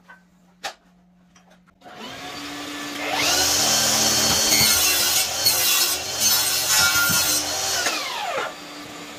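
DeWalt mitre saw starting up about two seconds in and cutting a mitre on a length of architrave, the blade spinning up, running loud through the cut, then winding down near the end.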